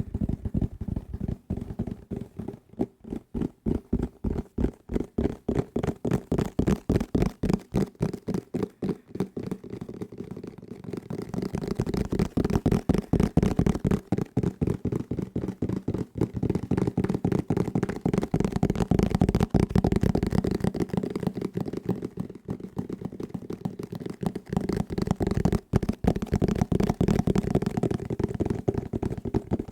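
Fast, hard tapping with fingers on desk objects close to the microphone, several dull taps a second. About ten seconds in, the taps run together into a denser, nearly continuous drumming.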